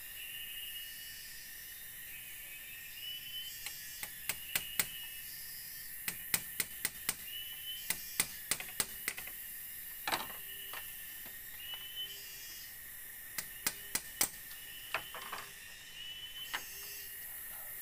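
Irregular sharp clicks and knocks of split bamboo slats being handled and fitted into a bamboo wall, starting about four seconds in and loudest in clusters. Behind them, a steady high buzzing drone of forest insects and a short rising chirp repeating about every second and a half.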